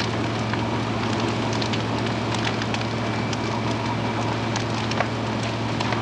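Crackling and popping of a large wood-frame building fire, many sharp irregular snaps over a steady rushing noise, with a steady low hum underneath.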